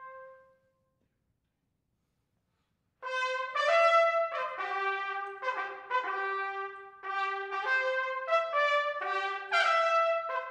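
Trumpet ensemble playing: a held note dies away, then after a pause of near silence of about two and a half seconds several trumpets come back in together with a run of short, overlapping notes in several parts.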